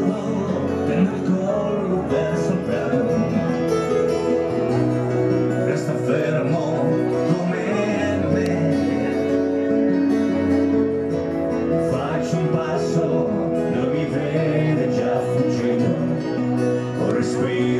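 Street band playing live: acoustic guitar with keyboard chords and a singing voice.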